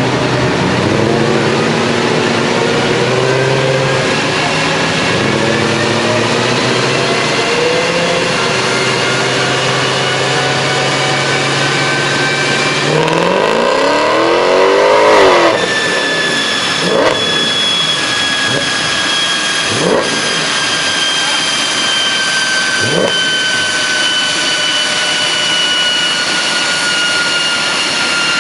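Mercedes CLK63 AMG's 6.2-litre V8 running on a chassis dyno, climbing through the revs and then sweeping up hard about halfway through before the throttle closes suddenly. After that, a high whine falls slowly as the drivetrain and dyno rollers coast down, with three short throttle blips along the way.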